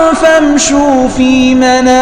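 A man's voice reciting the Quran in melodic tajweed style, drawing out a long vowel: the voice slides down through a few notes, then holds one steady note through the second half.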